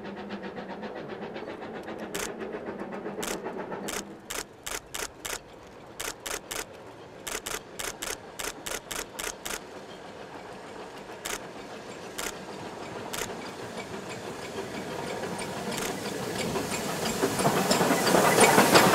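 Camera shutters clicking, singly and in quick bursts, as a steam locomotive approaches along the track. The train's running sound grows steadily louder and is loudest near the end as it passes close by.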